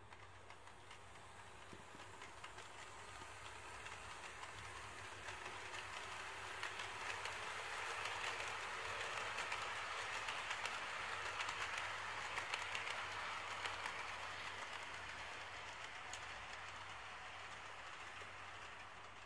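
HO-scale model trains running on sectional track: a rolling rattle of fine rapid clicks from wheels over the rail joints. It grows louder as a train of tank cars nears, is loudest about eight to thirteen seconds in, then fades.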